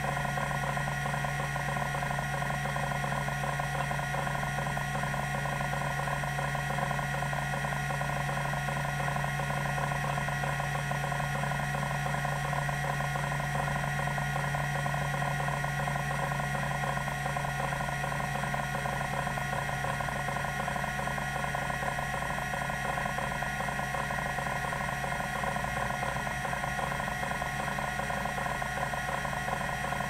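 TEAC SD-510 10 MB MFM hard drive seeking continuously during a random access test: a fast, irregular chatter from its band stepper actuator stepping the heads, over the drive's steady hum and whine.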